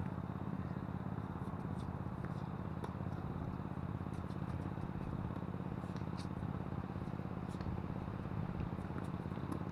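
Steady low rumble of strong wind buffeting the camera's microphone, with a few faint, thin ticks of tennis balls being struck by rackets during a rally.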